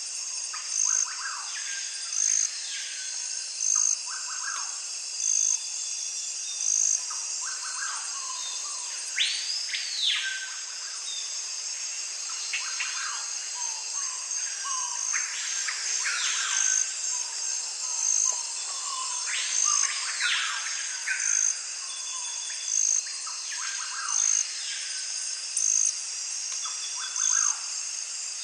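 Outdoor ambience of birds calling and chirping over a steady insect trill that pulses about every one and a half seconds, with a few louder calls that rise and fall in pitch.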